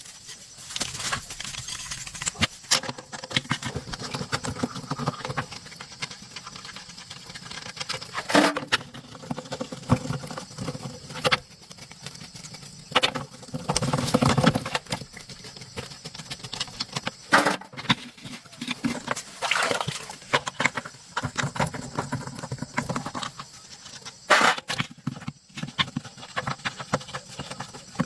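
Hand work on car wheel parts: irregular clicks, taps and knocks with stretches of scraping, the sharpest knocks coming about a third of the way in and near the end.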